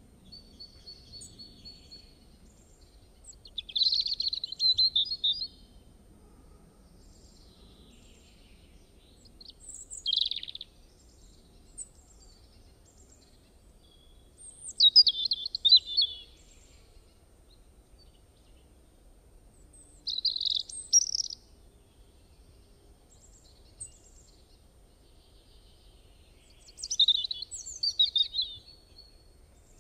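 A bird singing in short chirping phrases, five bursts a few seconds apart with quiet between, over a faint low background hum.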